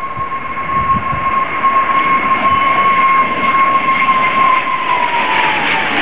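A turbine-engined aircraft flying past: a steady high engine whine over a rushing engine noise, and the whine drops in pitch in the last second or two as the aircraft goes by.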